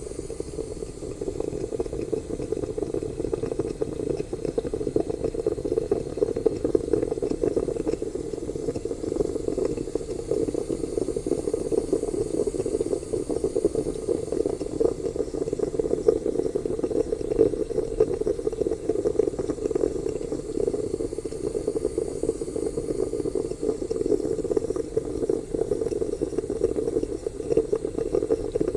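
Stovetop moka espresso pot bubbling and gurgling steadily as the water in it boils, a dense run of small rapid pops with a faint hiss.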